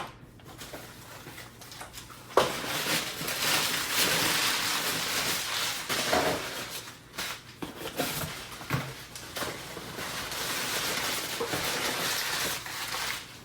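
Packing material being handled and pulled from a shipping box: rustling and crinkling that starts a couple of seconds in and carries on, with a few sharper knocks.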